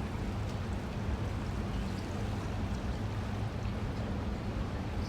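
Steady low hum of a cruise ship underway, with an even rush of wind and water over it.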